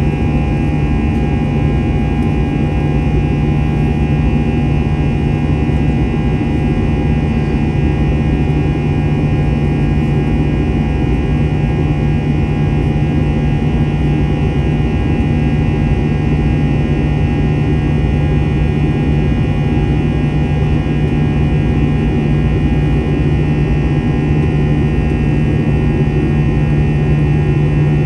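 Airbus A321-200 jet engines and airflow heard inside the cabin over the wing in flight after takeoff: a steady, unchanging drone with a deep hum and a few constant whining tones above it.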